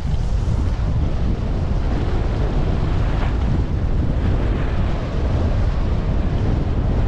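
Steady wind rumble buffeting a GoPro HERO10's built-in microphone during a downhill ski run, with the steady hiss of skis sliding over snow.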